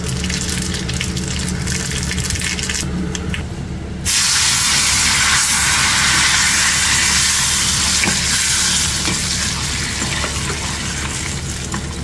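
Hot oil with cumin seeds and dried red chillies sizzling in a small pan. About four seconds in, the hot tempering is poured over the roselle-leaf chutney and it hisses loudly, easing back to a softer sizzle as a spoon stirs it in the steel pot.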